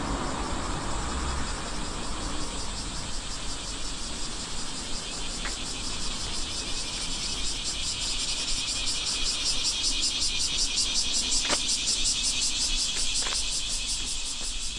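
A chorus of cicadas buzzing in an even, fast pulse that swells from about halfway through, over a low rumble of wind on the microphone.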